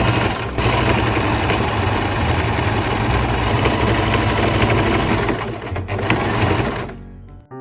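Electric sewing machine running steadily at speed, stitching, then stopping abruptly about seven seconds in.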